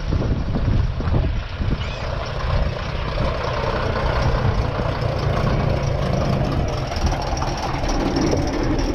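Vintage double-decker bus's diesel engine idling close by, a steady low rumble.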